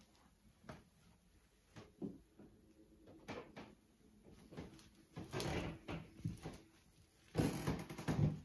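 Light knocks and clicks of someone walking along a carpeted landing, then longer rustling noises, the loudest about a second long near the end, as an interior bedroom door is pushed open.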